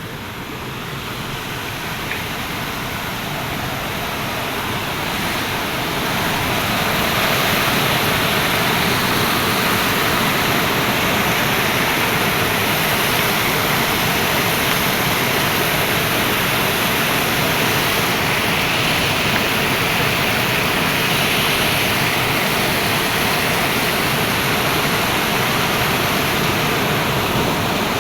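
A waterfall's rushing water: a steady, dense roar that grows louder over the first several seconds, then holds level.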